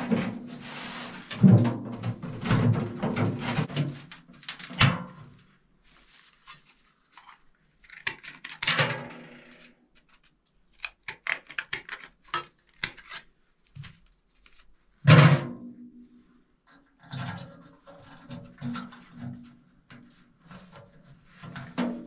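A galvanized bucket stove being worked by hand with pliers: irregular metal clanks, scrapes and sharp clicks with pauses between them, and a loud knock about fifteen seconds in.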